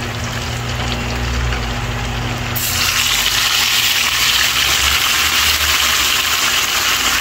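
Pork frying in a pot with garlic and hot peppers: a steady sizzling hiss that turns suddenly louder and brighter about two and a half seconds in.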